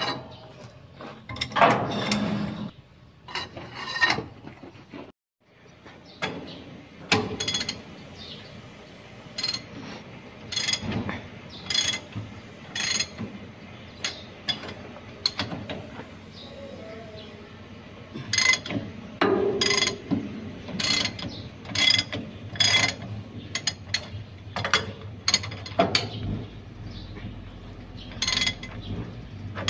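Hand ratchet wrench clicking in repeated strokes on the U-bolt nuts of a dump truck's leaf spring, sharp clicks coming irregularly about once or twice a second.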